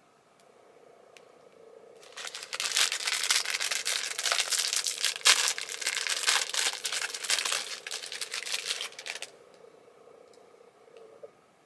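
Plastic snack-cake wrapper crinkling loudly as it is handled and opened, for about seven seconds from about two seconds in.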